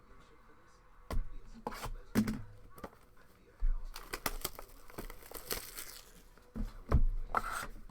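Plastic wrap on a trading card box being torn open and crinkled, with a few sharp clicks of handling before it and a knock near the end.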